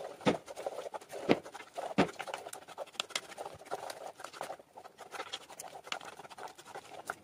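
Spoon stirring masala paste in a cooking pan, mixing in the ground coconut and poppy-seed paste with a little water. Three sharp knocks come in the first two seconds, followed by scraping and small clicks.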